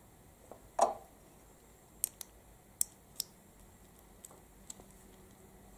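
Small white plastic wiring-harness connectors being handled and fitted together: one louder snap or knock about a second in, then about six short, sharp plastic clicks spread over the next few seconds.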